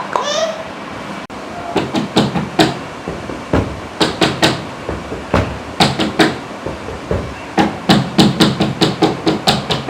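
An elderly man making funny mouth noises for a baby: runs of sharp tongue clicks, quickest near the end at about five a second, after a short gliding squeak at the start.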